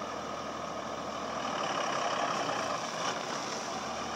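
Single-axle Freightliner dump truck's Cummins 5.9-litre diesel running as the loaded truck pulls away slowly, getting louder about a second and a half in as it takes load and puffs dark exhaust. A short knock about three seconds in.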